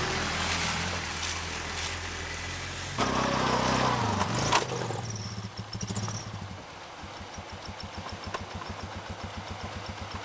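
Off-road vehicle engines. One engine runs steadily close by, gets louder for a second and a half about three seconds in, then falls in pitch and fades. From about six seconds in, a quad bike's engine chugs at low revs with an even pulse of about six beats a second as the bike crawls slowly closer.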